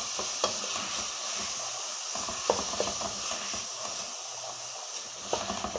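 Chopped onion, tomato and peppers sizzling as they sauté in a metal pan, a steady hiss, with a few sharp knocks and scrapes from a wooden spoon stirring them.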